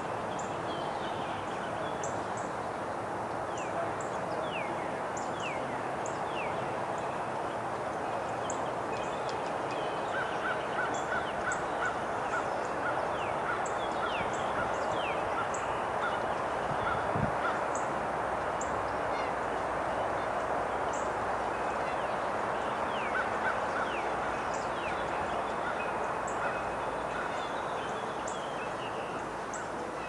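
Several wild birds calling over a steady noisy background: many short falling chirps and, at times, quick rattling runs of even notes.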